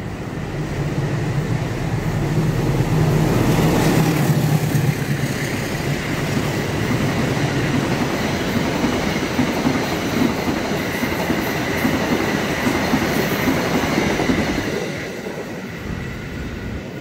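A diesel-hauled KAI long-distance passenger train running through at speed. A low engine hum comes in the first few seconds, then the coaches' wheels clatter and clack over the rails, fading out a couple of seconds before the end.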